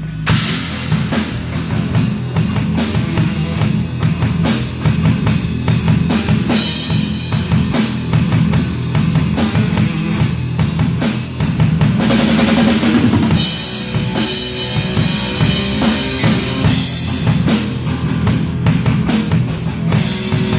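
Rock band playing, a drum kit driving a steady beat of evenly spaced cymbal strokes over bass drum and bass, with a held cymbal wash about twelve seconds in.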